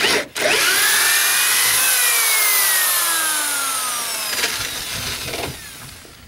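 Corded electric drill boring through the boat's wooden transom: a short blip, then a steady run of about four seconds, its whine slowly dropping in pitch as the bit bites into the wood, easing off and stopping about five and a half seconds in.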